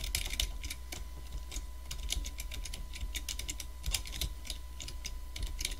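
Typing on a computer keyboard: a run of quick, irregular keystroke clicks over a faint steady electrical hum.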